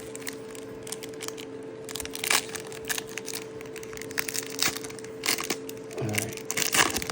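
Foil trading-card pack being torn open and handled, an irregular run of sharp crackles and crinkles over a faint steady hum.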